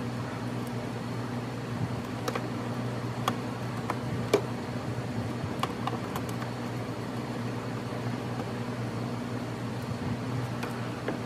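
Steady low machine hum, with scattered light clicks and taps as plastic clips and screws are fitted to a car's fender duct in the wheel well. The sharpest click comes about four seconds in.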